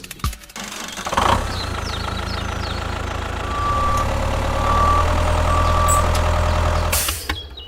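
A heavy vehicle's engine running steadily. Three short reversing-alarm beeps sound in the middle, and the engine cuts off near the end.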